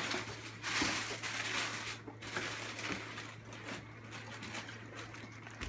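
Plastic packaging bags crinkling and rustling as they are handled in a cardboard box, loudest in the first two seconds. A low steady hum runs underneath.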